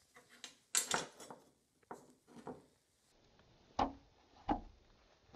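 Scattered short knocks and light clatters of hard objects being handled, with two louder knocks near the end.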